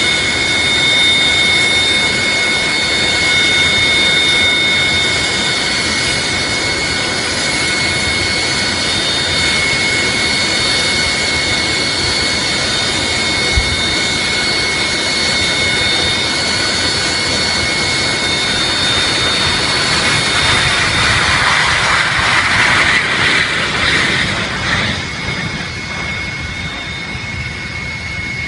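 Aircraft engines running with a steady high whine over a rushing roar, with one short low thump about halfway through. The rushing swells louder for a few seconds near the end, then eases off.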